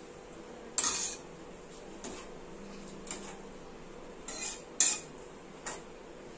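Steel spatula knocking and scraping against a kadhai while stirring vermicelli in milk: about six separate clinks, the loudest about a second in and just before five seconds.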